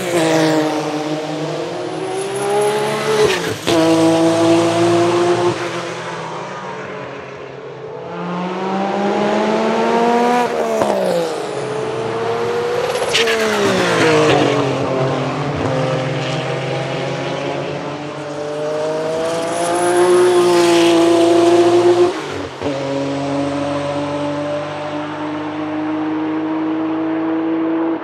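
Porsche 962's single-turbo flat-six racing engine at full song on track, its note climbing through the revs and dropping at several gear changes, with sharp cracks at some shifts about 3.5, 11, 13 and 22 seconds in.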